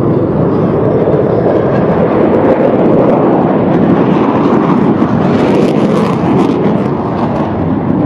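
Steady roar of an aircraft in flight overhead, a little louder through the middle.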